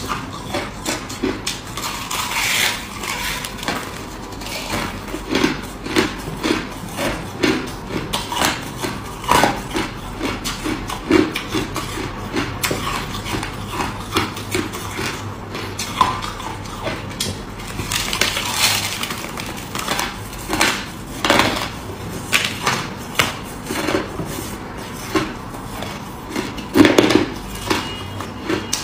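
Mouthfuls of crushed ice being crunched and chewed close to the microphone: a dense run of crisp crunches, several a second, loudest near the end.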